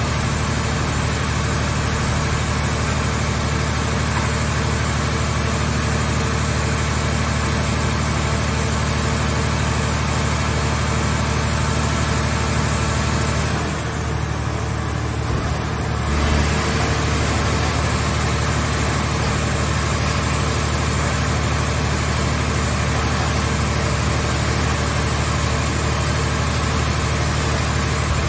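Scrap car baling machine's power unit and hydraulics running steadily. About halfway through the sound dips for a couple of seconds, then comes back with a low thud.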